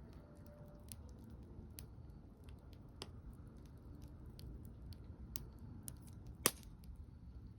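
Wood fire crackling: scattered sharp pops and snaps, with one louder crack about six and a half seconds in, over a faint low rumble.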